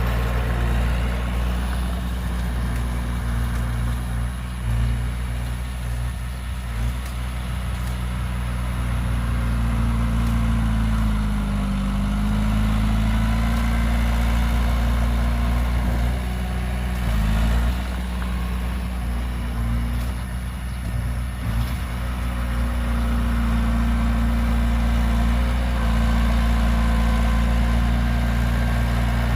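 Heavy diesel engine of earthmoving machinery running steadily, mostly near idle. Its pitch dips and comes back up about eleven seconds in, and the note shifts again briefly later on.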